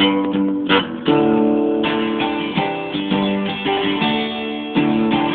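Acoustic guitar strumming chords, a fresh strum about once a second, as an instrumental break between verses of the song.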